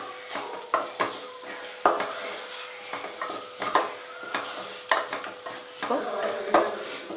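A wooden spatula stirring and scraping a spice masala in the body of a pressure cooker, with the oil sizzling underneath and irregular knocks of the spatula against the pot. The spice powders are being fried in the masala until their raw smell goes.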